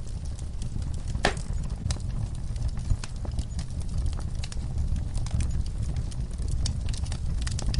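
Wood fire burning in a fireplace: a steady low rumble of flames with frequent small crackles and snaps, and one louder pop a little over a second in.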